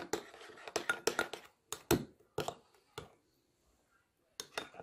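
Metal spoon clinking and scraping against a ceramic bowl while stirring a thick blended herb paste with olive oil: a run of irregular clicks, with a pause of about a second before the last few.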